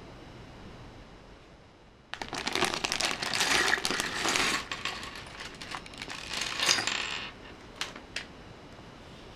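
A thin plastic LEGO polybag crinkling as it is handled and opened. Small plastic bricks then clatter out onto a wooden table, with a couple of last pieces clicking down near the end.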